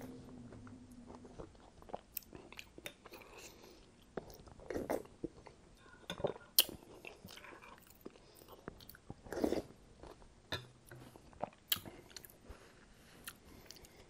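Close-miked mouth sounds of a person eating a spoonful of creamy broccoli cheddar soup: soft wet chewing and swallowing, with scattered sharp clicks and smacks.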